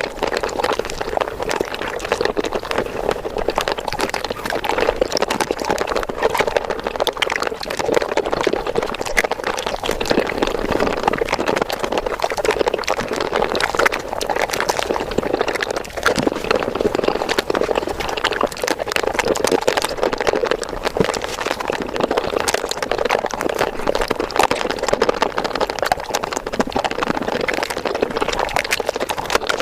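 Mukbang ASMR eating sounds of chocolate ice cream, sped up fivefold: chewing and mouth noises packed into a dense, continuous stream of small clicks.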